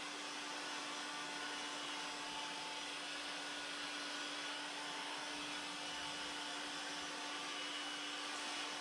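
A steady electric-motor machine running continuously, a constant whooshing hiss over a low, even hum, like a blower or vacuum-type motor.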